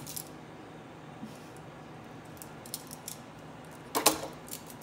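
Metal kitchen tongs with silicone tips being clacked shut: a few faint clicks, then a quick cluster of sharp clicks about four seconds in.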